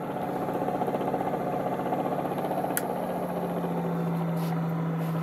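DC motor-driven AC generator running with a steady hum whose pitch drops a little about three to four seconds in: the generator slows slightly under the load of a floodlight bulb. A faint click comes about midway.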